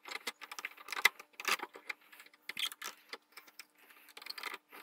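Ansonia 8-day clock mainspring being let down on a mainspring winder, its tension passing into the retaining clamp: a quiet, irregular run of small metallic clicks and ticks.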